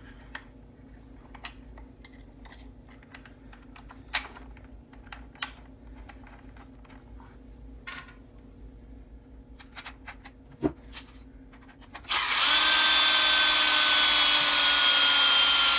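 Light clicks and taps of small parts and screws being handled. About twelve seconds in, a power drill starts driving a screw into the RC truck's chassis brace, running steadily with a whine that slowly falls in pitch.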